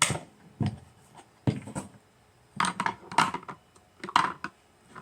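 Plastic toy food and play-kitchen pieces being handled, giving a run of short knocks and clattering rattles with quiet gaps between them.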